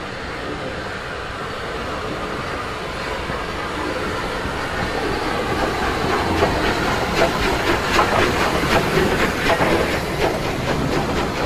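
Rebuilt Bulleid Battle of Britain class three-cylinder Pacific steam locomotive 34053 approaching and passing close while hauling coaches, growing steadily louder. From about halfway a quick, regular run of sharp beats and clicks sets in as the engine and its wheels go by.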